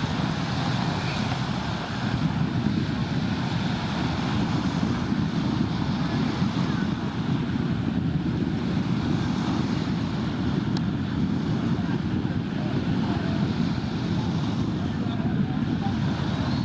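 Steady wind noise on the microphone over small waves washing onto the shore, an even rushing sound with no breaks.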